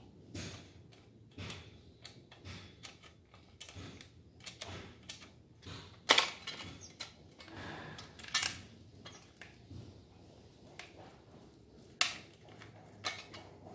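Light clicks and knocks from small plastic parts being handled and fitted on the casing of a Honda UMR435T brush cutter's engine: a string of short taps with a few sharper snaps, the loudest about six seconds in and again about twelve seconds in.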